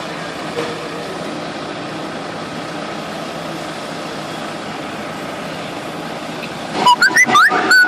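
The machinery of a 1000-tonne static pile driver running steadily. Near the end comes a short burst of loud, high-pitched squeals that rise in pitch.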